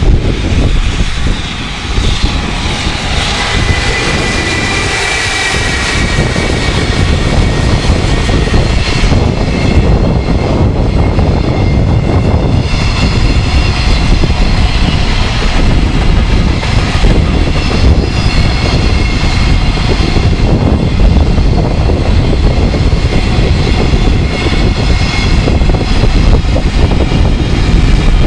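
A freight train hauled by an electric locomotive passing close by: a heavy, continuous rumble with a high whine over it. Strong wind buffets the microphone.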